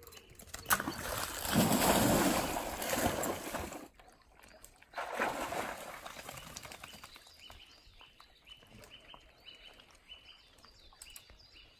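Dogs leaping into a shallow stream and splashing through the water: a loud stretch of splashing lasting about three seconds, then a second, shorter burst of splashing a couple of seconds later.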